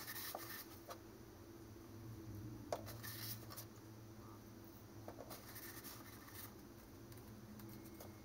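Faint handling sounds: a paper towel rustling in three short spells and a few light clicks and taps as a cardboard tube and a plastic glue bottle are handled.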